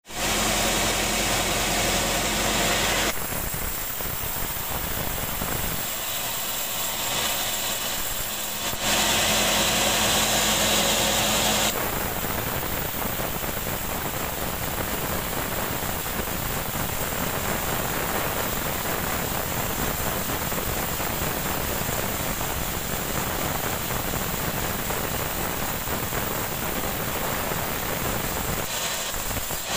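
Band sawmill running, its blade cutting lengthwise through a long, crooked rambutan log, a steady mechanical whir with sawing noise. The sound shifts several times in the first twelve seconds, then holds steady.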